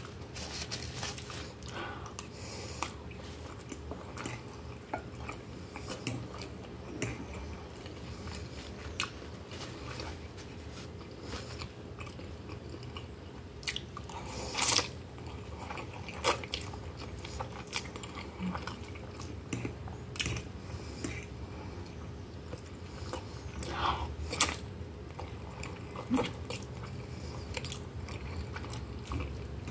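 Close-up mouth sounds of eating baked instant noodles with melted cheese: chewing and lip smacks with many small scattered clicks. A few louder smacks come about halfway through and again a few seconds before the end.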